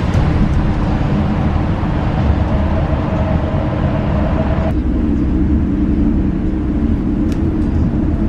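Cabin noise inside a moving bus at highway speed: a steady loud low rumble of engine and tyres on a wet road. A higher hum and hiss drop away abruptly a little over halfway through.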